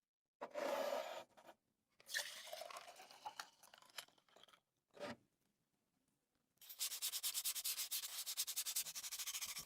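Rubbing and scraping on a lantern being cleaned and restored: a few short bursts of scrubbing, then fast, even back-and-forth strokes for the last three seconds.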